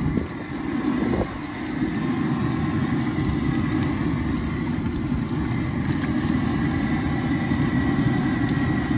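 Crawfish washer running steadily while it cleans a batch of crawfish: a continuous low mechanical hum and rush of churning water, with a faint steady whine above it.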